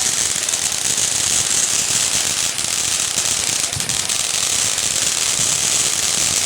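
Fireworks crackling: a steady, dense fizz of many small rapid pops.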